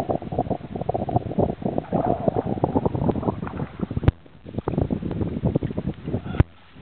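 Water splashing as a hooked redfish thrashes at the surface beside the boat while it is grabbed by hand, with wind buffeting the microphone. Two sharp clicks, about four and six seconds in, each followed by a brief drop in sound.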